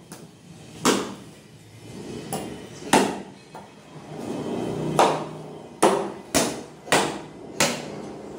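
Butcher's cleaver chopping through mutton ribs on a tarp-covered tiled floor: about ten sharp chops, spaced irregularly at first, then coming faster in the second half.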